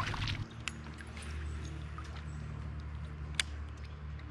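Faint water lapping and sloshing around a kayak, over a low steady rumble, with light handling ticks and one sharp click about three and a half seconds in.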